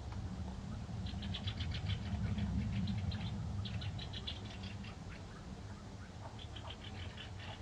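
European goldfinch twittering: fast runs of short, high tinkling notes in three bouts, over a steady low rumble.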